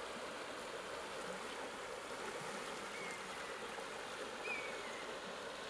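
Steady rush of flowing river water, with a couple of short, faint high chirps about three and four and a half seconds in.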